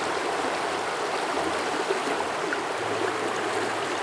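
River water rushing steadily past in a fast current.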